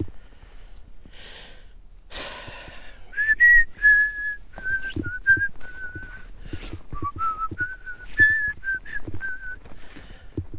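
A person whistling a simple tune: about a dozen short, clear notes that step up and down in pitch, with soft low thuds underneath.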